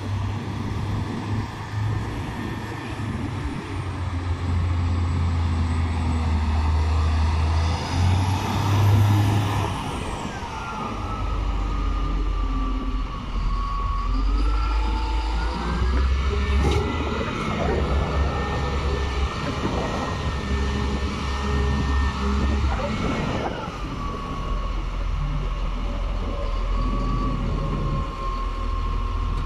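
Caterpillar 950H wheel loader's six-cylinder diesel engine running and being revved up and down, with a high whine that rises and falls with the revs, and holds steady for several seconds in the middle.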